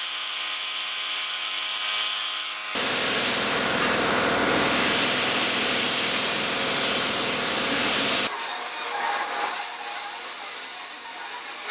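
Metalworking on a brushless-motor mini lathe. First the steady whine of the running lathe, with several even tones. About three seconds in, a loud, harsh noise of metal being cut or worked starts abruptly. It lasts about five seconds, then gives way suddenly to quieter working noise.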